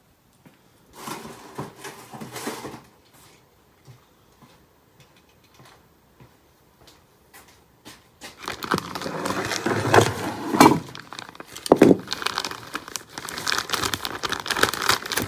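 Clear plastic packaging bag being slit with a utility knife and pulled open, crinkling and tearing densely with sharp crackles from about eight seconds in. A shorter rustle comes about a second in, followed by a few quiet seconds.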